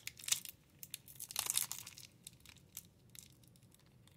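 Crinkling and rustling of a trading-card pack's wrapper as fingers pick and pull at its sealed end, trying to get it open. There are scattered crackles, with a louder rustle about a second and a half in.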